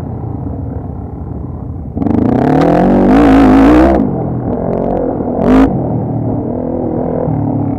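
ATV engine running, revved hard for about two seconds with the pitch climbing and wavering, then a short blip of throttle a little later.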